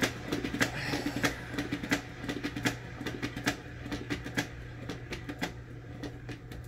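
Turntable spinning a freshly poured canvas, clattering with fast, irregular clicks and rattles. The worn spinner sounds like it's on its last legs.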